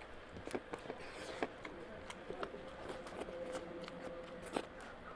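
Bare fingers mixing and squeezing oily curry-soaked rice on a plate, a scattered run of small wet clicks and squishes.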